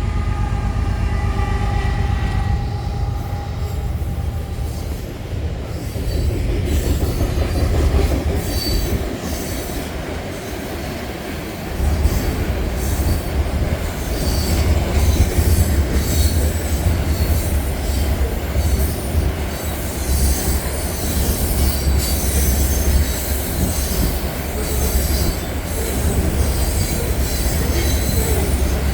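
BNSF train rolling past: a steady heavy rumble with a rapid clatter of wheels on the rails, getting louder about twelve seconds in.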